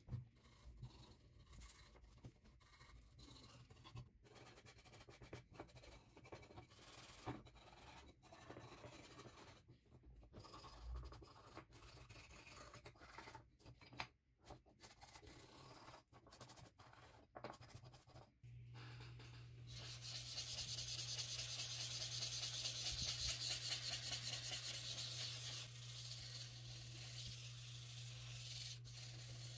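Softened paint being scraped off a plastic model car body with a small tool: faint, irregular scratching with scattered small clicks. About two-thirds of the way in, a louder steady hiss with a low hum takes over.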